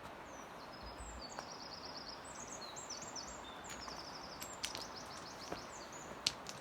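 A small songbird singing quick, high, rapidly repeated trilled phrases for the first few seconds, over a steady rushing background noise, with a few sharp clicks.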